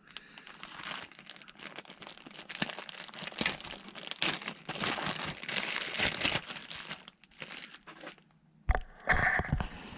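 Packaging for a fish-finder transducer mount crinkling and rustling as parts are pulled out of it, with a sharp knock shortly before the end.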